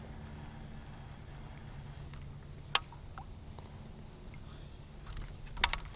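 Sharp clicks from handling a baitcasting rod and reel: a single loud click about three seconds in, then a quick cluster of clicks with a low knock near the end, over a low steady hum.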